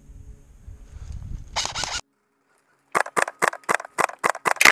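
Rustling movement noise through dry brush builds over the first two seconds, then the sound drops out for about a second. After that, an airsoft rifle fires a quick string of single shots, about five a second.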